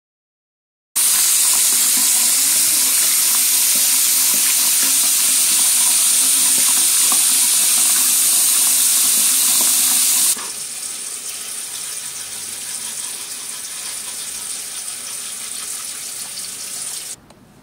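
Bathroom sink tap running into the basin, a loud steady rush of water that cuts off abruptly about nine seconds in. A quieter steady hiss follows and stops suddenly just before the end.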